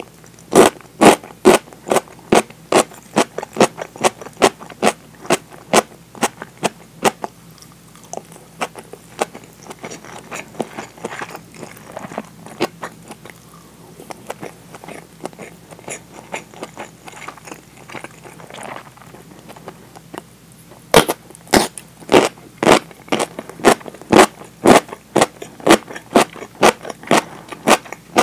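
Crisp pickled daikon (tō-shibori daikon) being bitten and chewed close to the microphone: sharp crunches about twice a second, softer chewing in the middle, then another run of loud crunches about twenty seconds in.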